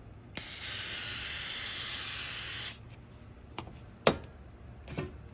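Aerosol cleaner sprayed in one steady hiss of about two seconds onto a transmission ball bearing to strip the oil from it, followed by a few sharp clicks.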